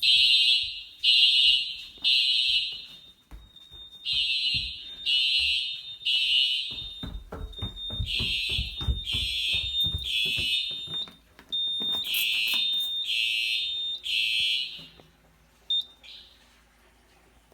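Home fire alarm system sounding in alarm after a manual pull station was pulled: high-pitched horns blasting in repeating groups of three short blasts with a pause between groups, a thin steady tone underneath. Some low thumps come in the middle, and the alarm cuts off about fifteen seconds in, followed by one brief chirp.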